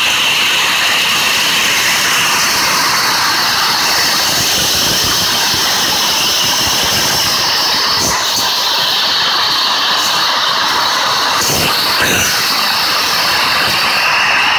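Steady, loud rushing roar of a large waterfall.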